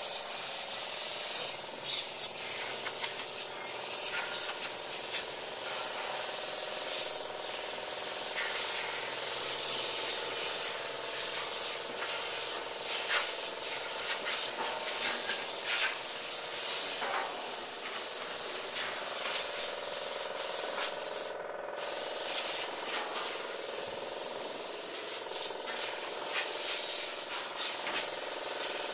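Steady hissing noise over a steady machine hum, with scattered short scraping sounds.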